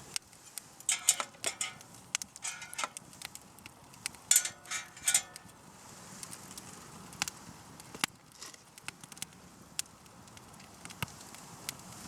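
Wood campfire crackling, with scattered sharp pops. A few louder bursts of rustling noise come in the first half.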